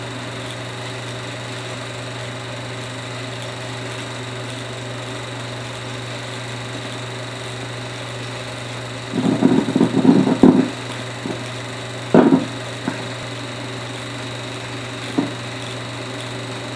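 Steady low hum with faint hiss from blank 16mm film leader playing through a projector's optical sound head, broken by a cluster of crackles and pops about nine seconds in and single pops near twelve and fifteen seconds.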